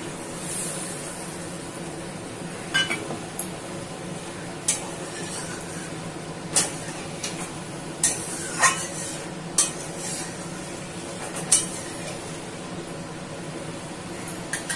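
A flat metal spatula scraping and clinking against an aluminium kadai as a thin curd gravy is stirred, giving scattered sharp clinks over a steady background hum.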